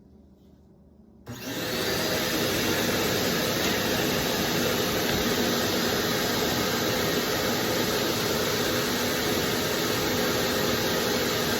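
DeWalt table saw switched on about a second in, its motor and blade quickly spinning up and then running steadily at full speed with no load.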